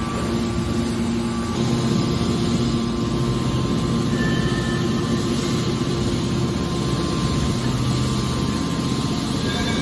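Scrap aluminum hydraulic baler running: a steady machine hum with mechanical noise. A lower hum joins in about a second and a half in.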